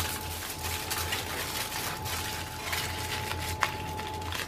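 Aluminium foil crinkling and rustling as it is rolled tightly around a log of sweet and its ends are twisted closed by hand, with one sharp click about three and a half seconds in. A faint steady hum runs underneath.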